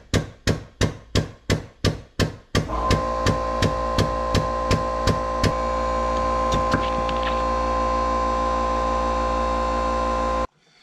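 Air-powered hydraulic hose crimper pumping as its dies close on a new hose end: a rhythmic stroke about two and a half times a second. About two and a half seconds in a steady hum starts under the strokes, which fade out, and the hum cuts off suddenly near the end.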